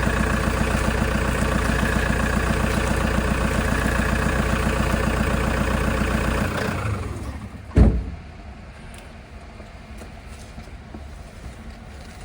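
Toyota HiAce engine idling steadily, then switched off and running down over about a second. Shortly after, a single loud thump.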